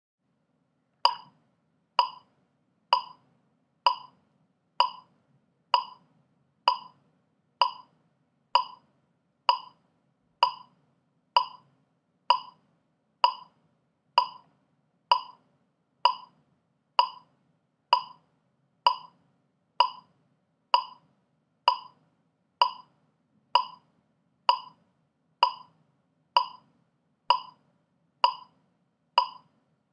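Metronome clicking steadily at 64 beats per minute, one short, sharp click a little under once a second. It starts about a second in, after silence.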